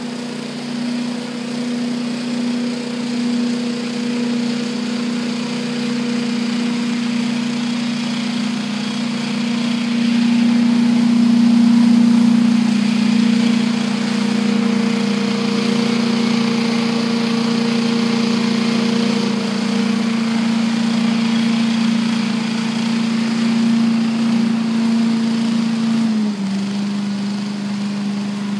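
Small petrol engine of a walk-behind leaf blower running at a steady speed. It gets louder about a third of the way in, and its pitch drops a little near the end.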